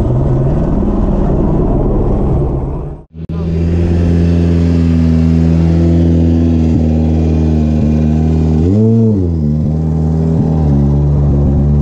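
A rally car's engine runs loud, then cuts off abruptly about three seconds in. Then the Hyundai i20 Coupe WRC's turbocharged four-cylinder idles steadily right beside it at the start control, with one quick blip of the throttle up and back down about nine seconds in.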